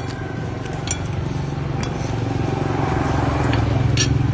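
A low engine hum that grows steadily louder, with a few light clicks about a second apart.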